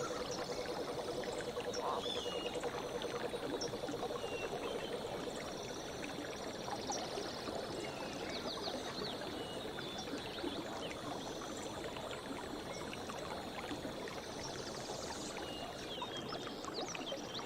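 Forest stream running steadily, with small birds chirping over it. A low rapid trill fades out about five seconds in.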